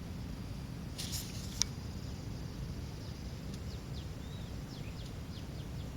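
Outdoor ambience: a steady low rumble with several short, high, downward-sliding bird chirps in the second half. A brief hiss and a sharp click come about a second and a half in.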